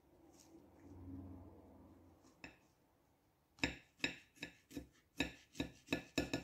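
Kitchen knife clicking against a plate while cutting up a fresh Carolina Reaper pepper: a run of sharp clicks, about three a second, starting about halfway in.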